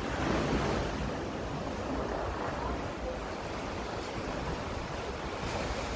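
Sea surf washing against rocks in a narrow coastal gorge, a steady rush with a slight swell about half a second in, mixed with wind buffeting the microphone.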